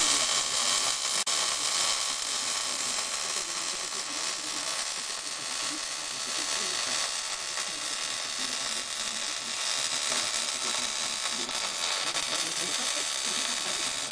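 MIG welder laying a continuous bead on the steel rear-axle perch bracket at the frame rail: an even, crackling sizzle of the arc that runs without a break.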